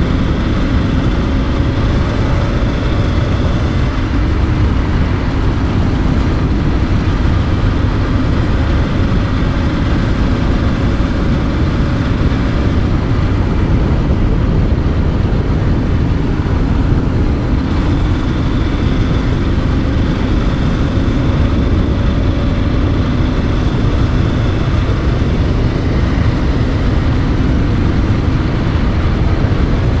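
A Honda 400X motorcycle's parallel-twin engine running at steady road speed under heavy wind noise, its pitch drifting gently up and down.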